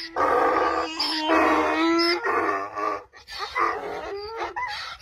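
Donkey braying: a run of loud hee-haws, the drawn-in and pushed-out notes alternating. The calls grow weaker after about three seconds.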